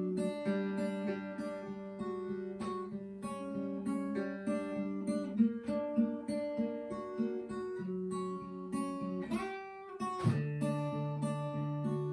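Steel-string acoustic guitar picking a repeating melody of single notes over a low bass line. About ten seconds in, the notes slide upward and a new phrase starts over a held low bass note.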